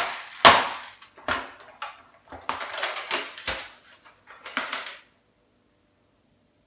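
Hard plastic and metal parts of an electric heater knocking and rattling as a switch is prised out of its casing: two sharp knocks at the start, then several smaller clatters that stop about five seconds in.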